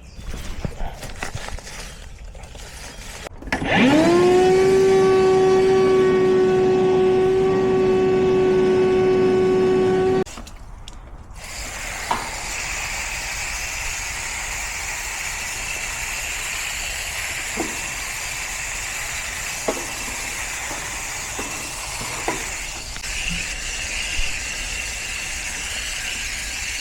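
A small electric motor whines up to speed, runs steadily for about six seconds and cuts off suddenly. A steady hissing spray of water on the condenser coil follows and runs on.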